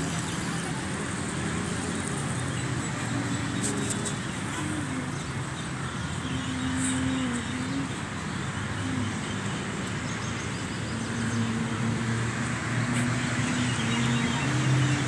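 Steady hum of road traffic, with engine tones holding and then shifting up and down in pitch.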